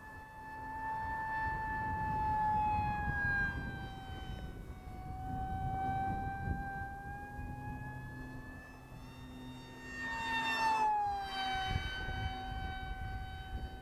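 Electric ducted-fan motor of a radio-controlled MiG-35 model jet whining steadily in flight, its pitch drifting slowly up and down with throttle. About ten seconds in, the jet passes close: the whine swells, then drops in pitch as it goes by.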